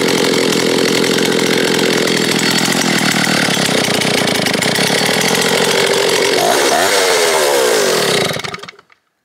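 Vintage 1970s Stihl S10 two-stroke chainsaw engine running with the choke closed, its first run after the carburettor's high and low jets were reset. About seven seconds in the revs sag and pick up again, and near the end the engine dies out.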